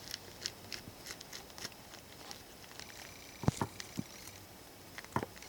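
Handling noise as the exploding-target charge is packed into a notch cut in a dead tree: light rustling and clicks, then a sharp knock about three and a half seconds in, a few smaller knocks after it, and more knocks near the end.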